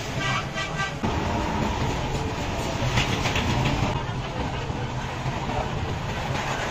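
Hydraulic press's electric pump unit running with a steady low hum and rumble, with a few brief knocks.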